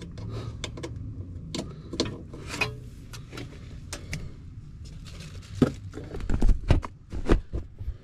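Scattered small clicks and rattles of wire spade connectors being pushed onto the terminals of a newly fitted high-limit switch inside a gas furnace package unit's sheet-metal cabinet. Several louder knocks and bumps come close together about two-thirds of the way in.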